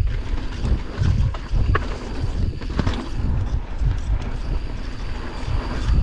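Mountain bike riding fast down a dirt trail: wind rumbling on the microphone, broken by frequent knocks and rattles from the bike over bumps.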